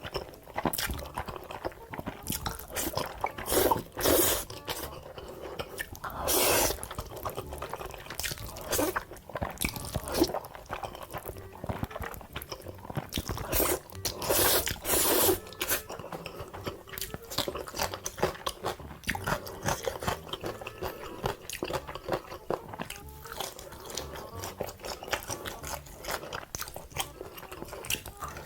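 Close-miked eating: crunchy bites and chewing, with several louder crunches among a steady run of smaller crackles.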